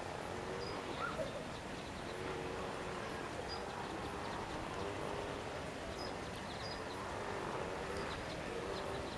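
Outdoor ambience: a steady rushing background with faint, short high chirps scattered through it every second or so.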